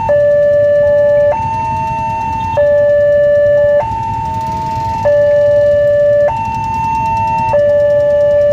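Electronic railway level-crossing alarm sounding its two-tone warning: a steady alternation between a louder low tone and a higher tone, switching about every second and a quarter. It signals that the barriers are down for an approaching train. A low rumble lies underneath.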